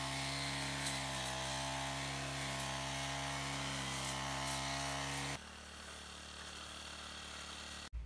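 Petrol brush cutter's small two-stroke engine running steadily at high speed while cutting grass. About five seconds in the sound drops abruptly to a fainter level.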